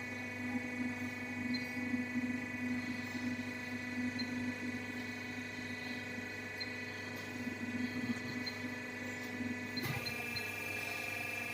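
CNC pipe bending machine running with a steady hum of several fixed tones, with a click and a slight change in the tone about ten seconds in.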